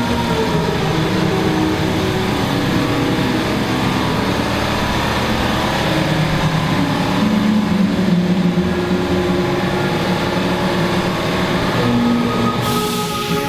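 Shop air compressor running steadily, with several sustained tones over a pulsing low drone. A hiss of air comes in about a second before the end.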